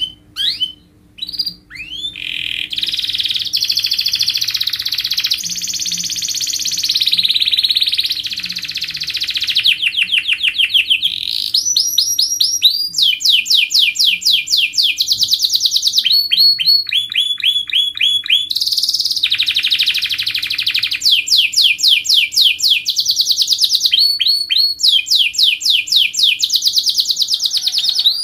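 Domestic canary singing: a few short chirps, then from about two seconds in one long unbroken song of tight, fast rolls and trills, each phrase of rapidly repeated notes giving way to the next every second or two.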